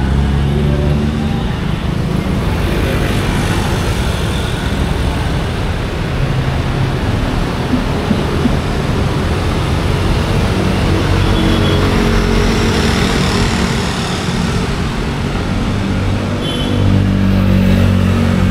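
Busy city street traffic: engines of passing vehicles running steadily over a continuous road noise, with a louder engine passing close near the end.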